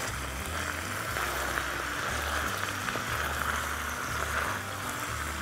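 Sliced zucchini, onion, garlic and fresh mint sizzling steadily in oil in a pan while a wooden spatula stirs them.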